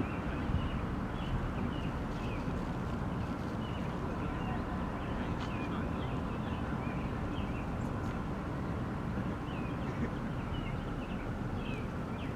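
Small birds chirping repeatedly over a steady low rumble of outdoor background noise.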